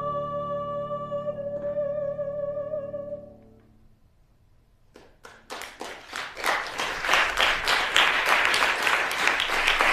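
A lyric soprano holds a final note with vibrato over a sustained piano chord, which stops about three seconds in. After a brief hush, audience applause starts with scattered claps and swells into loud, steady clapping.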